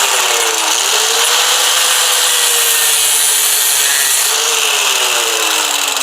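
Angle grinder with a metal cutoff disc cutting through metal. Its motor whine sags and recovers a couple of times as the disc bites in.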